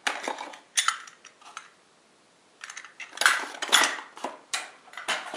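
Steel parts of an electric planer's blade-sharpening kit clinking and rattling as they are handled in a small cardboard box: a few clinks at the start, a short pause, then a denser run of clinks in the second half.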